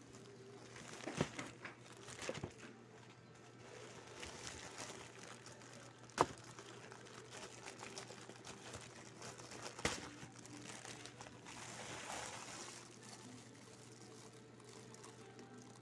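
Plastic courier mailer bag and clear plastic shoe wrapping crinkling and rustling as they are handled and pulled open. A few sharp snaps of the plastic come through, the loudest about six seconds in.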